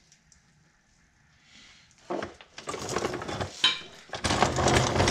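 Wheeled jack carrying a driveshaft rolled across a concrete floor, its casters grinding and the metal rattling and clattering. The clatter starts about two seconds in, after a near-silent start.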